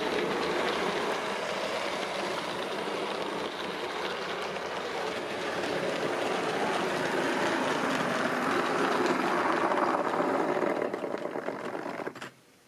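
H0-scale model of a TE-109 diesel locomotive running with passenger coaches on model track: a steady running noise that grows louder as the train comes near, then stops abruptly near the end.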